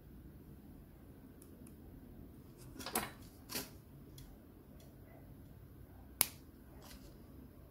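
A few light clicks and taps of small hand tools being handled, then one sharp snip near the end as side cutters cut through a craft wire end.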